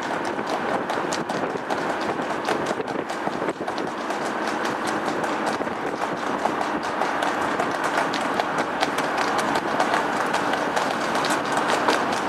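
Hooves of two trotting harness horses striking a wet road in a fast, rhythmic clatter as they pull sulkies, over steady engine and tyre noise from the vehicles.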